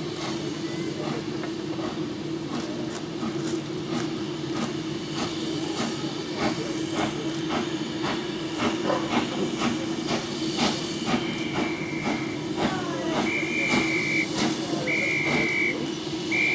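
BR Standard Class 4MT 4-6-0 steam locomotive working a train away from a standstill, its open cylinder drain cocks hissing steadily under regular exhaust beats that quicken as it gets under way. A few short high whistle notes sound near the end.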